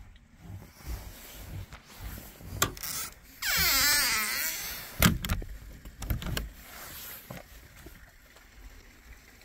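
Knocks and rubbing on a homemade plywood camper door and its latch, with a loud rushing scrape lasting over a second in the middle and the sharpest knock about five seconds in.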